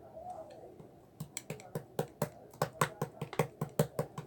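Slime being squeezed and poked by hand, making sharp wet clicks and pops. They start about a second in and come irregularly, about three or four a second.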